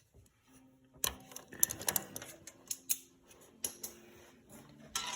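Vice grips (locking pliers) being unlatched and taken off the small metal vent on a tractor's PTO housing: a run of irregular metal clicks and taps.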